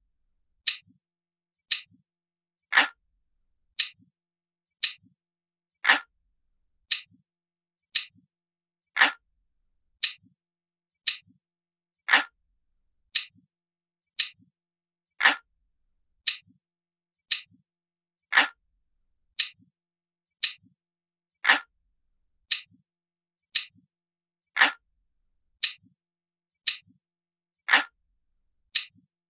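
Glass-like clock ticking from a countdown timer, one crisp tick about every second. Every third tick is fuller, and each tick has a faint low after-click.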